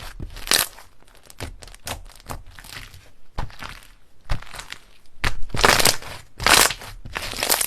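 Slime being squeezed and squished by hand, crackling and crunching in irregular bursts, loudest near the end.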